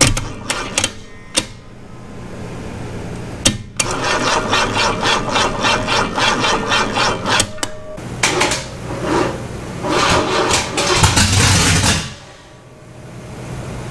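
Starter motor cranking a Chevy 350 small-block V8 over on a test stand, in two long stretches of rapid, evenly repeating pulses, with a few sharp clicks before them.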